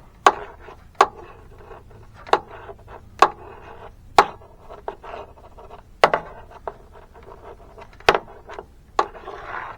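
Handling of wiring and plastic connectors: about eight sharp clicks and taps at uneven intervals over soft rubbing and rustling.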